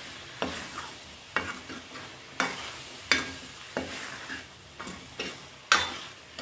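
A spatula stirring chicken and masala in a kadai, knocking and scraping against the pan about once or twice a second, over a steady low sizzle of the frying mixture.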